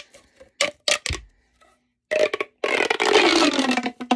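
Plastic pop tube fidget toy being worked by hand. First come a few sharp pops as its ridges snap. Then, about two seconds in, a longer run of dense crackling pops as the tube is pulled out lengthwise.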